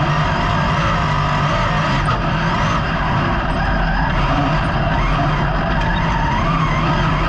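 Dirt-track race car's engine running hard at racing speed, heard loud from inside the cockpit, its pitch wavering slightly with the throttle.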